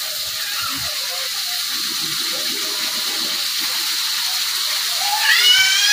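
Chilli spice paste for eggplant sambal sizzling and bubbling in an aluminium wok over a gas burner: a steady frying hiss as the paste cooks down until cooked and fragrant. Near the end a short, high, rising call sounds over it.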